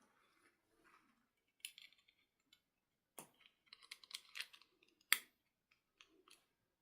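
Hands handling a toy doll and its plastic packaging: scattered clicks and short rustles, with one sharp snap about five seconds in.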